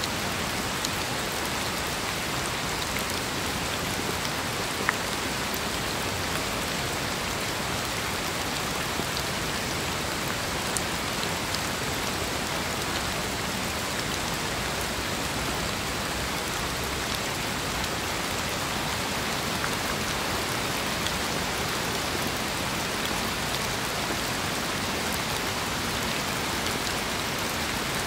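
Steady rain falling, with scattered individual drops ticking and one sharper drop about five seconds in.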